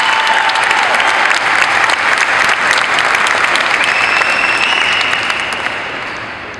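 Audience applauding, dying down over the last second or two.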